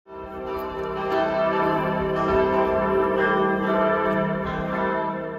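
Church bells ringing: several bells struck again and again in overlapping peals, each stroke leaving a long ringing hum, beginning to fade near the end.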